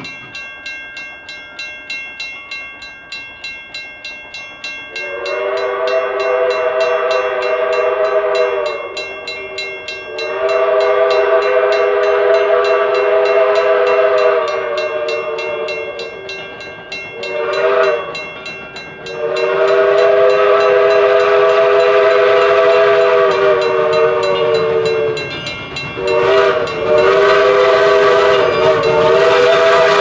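Steam locomotive chime whistle sounding several notes at once as one chord, blown long, long, short, long: the standard grade-crossing signal, with another long blast starting near the end. Before the whistle, the train runs with a steady rhythmic beat of about three a second.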